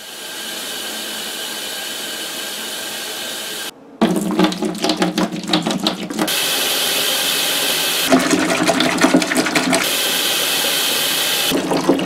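Water running from a kitchen faucet into a plastic jug. After a cut about four seconds in, water is poured from the jug into a plastic ice chest, going in uneven spurts between smoother stretches of steady pouring.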